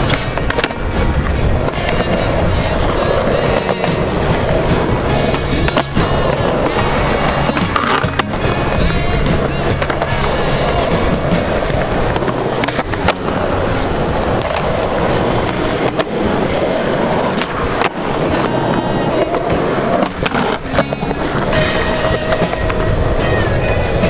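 Skateboard wheels rolling on smooth concrete, with several sharp clacks of the board popping and landing, over steady background music.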